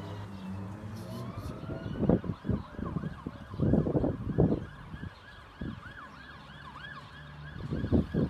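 A faint siren wailing slowly, then switching to a rapid yelp about two seconds in, over a low steady hum. Several loud low rumbling bursts come and go, the loudest near the middle and again near the end.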